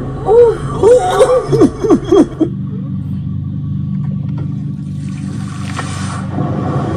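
A person laughing in quick repeated bursts for about two and a half seconds, then a steady low hum.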